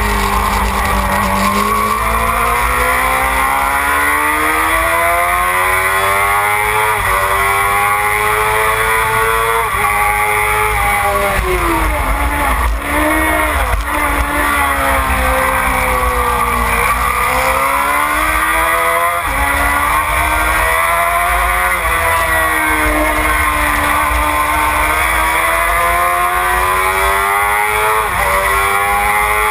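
Suzuki sport bike's inline-four engine at full racing load: the engine note climbs in steps through the gears and falls back on each downshift, dropping lowest about twelve seconds in, under a steady low rush of wind.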